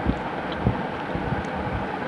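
Fingers squeezing and mixing rice and curry on a steel plate, with two soft low thuds, the second about two-thirds of a second in, over a steady rushing background noise.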